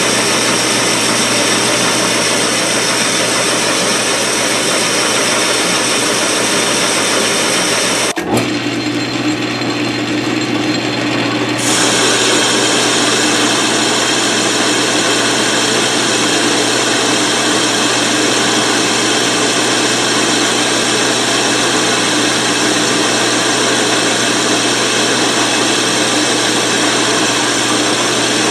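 South Bend 13-inch lathe running, turning a metal part with chips coming off the tool. A steady machine noise. About eight seconds in it breaks off abruptly and runs quieter for a few seconds, then steps back up to full.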